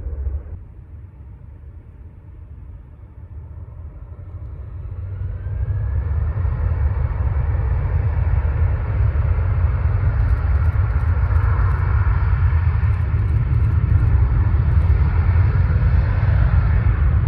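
Jet airliner's engine noise swelling over about two seconds, from about four seconds in, then holding loud and steady over a deep rumble.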